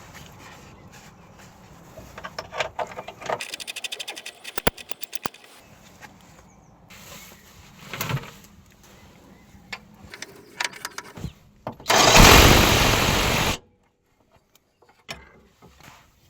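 Car-repair workshop sounds: metal tools clicking and knocking, a quick run of even clicks, then a loud burst of hissing noise lasting about a second and a half.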